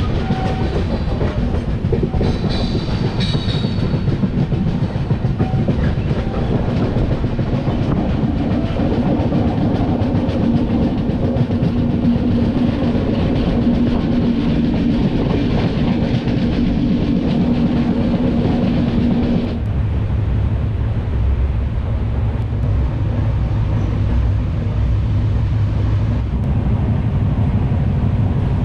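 Wheels of an LHB passenger coach running over the rails at speed, a dense rumble and clatter heard through the open coach door, with a steady hum through the middle. About twenty seconds in the sound turns abruptly to a lower, duller rumble, as heard from inside the coach.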